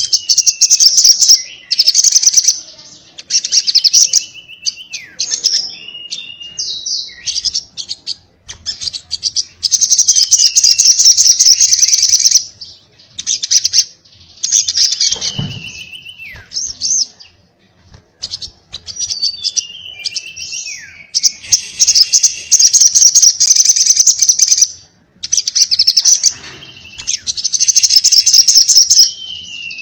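A little spiderhunter (sogon) singing in loud bursts of rapid, stuttering chatter, each lasting one to three seconds, with short falling notes between the bursts.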